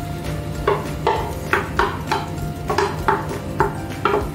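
A utensil scraping and knocking against a ceramic plate, about two or three short clinks a second, as flaked tuna with pechay is pushed off the plate into a frying pan.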